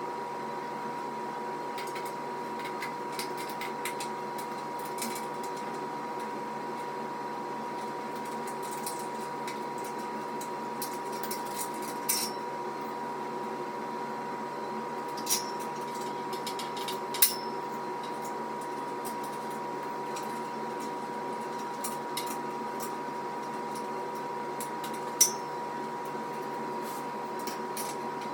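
A steady hum with a few sharp metallic clinks, the loudest about twelve, fifteen, seventeen and twenty-five seconds in: steel squat-rack parts and tools knocking together during assembly.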